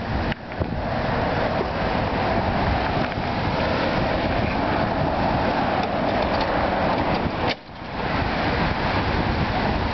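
Scag Sabertooth Tiger zero-turn mower's 25 hp Kohler twin-cylinder gas engine running steadily, with a brief break about three-quarters of the way through.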